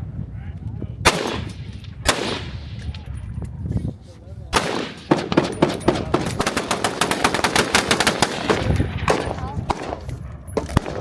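Gunfire at an outdoor shooting range: three separate loud shots, then a quick string of many shots lasting about three and a half seconds, and one more shot near the end.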